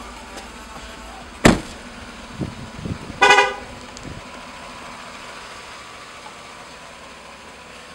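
A 2015 GMC Yukon's front door slammed shut once, about a second and a half in, followed about two seconds later by a short car-horn beep.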